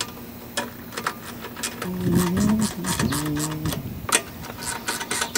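Rapid, irregular metallic clicking and rattling of a hand tool working at the sheet-metal recoil starter housing of a Briggs and Stratton lawnmower engine, with brief wordless vocal sounds about halfway through.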